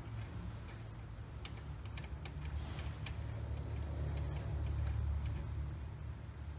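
Light, irregular metallic clicks of a hand tool on the Torx bolts of the CP4 pump's inlet metering valve as they are worked loose, over a low steady hum.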